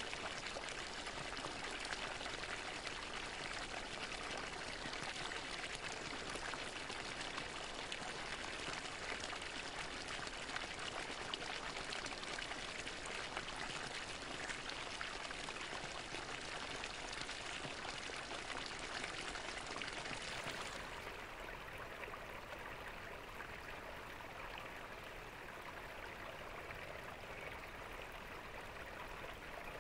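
Water from a fountain splashing and pouring steadily. About two-thirds of the way through, the sound changes to a softer, duller flow with less hiss.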